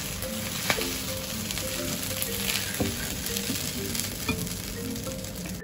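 Stir-fried noodles sizzling steadily in a hot frying pan as they are pushed out onto a plate with chopsticks, with a few light clicks. Soft background music plays underneath.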